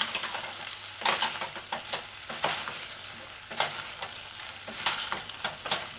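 Fish pieces and broccoli sizzling in oyster sauce in a stainless-steel saucepan, with a wooden spatula stirring and scraping through them in repeated strokes about every second and a quarter over a steady frying hiss.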